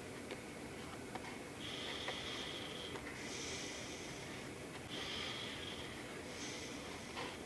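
A person breathing slowly in and out through the nose, each breath about a second long with a faint whistle, over a steady low hum and a few faint ticks.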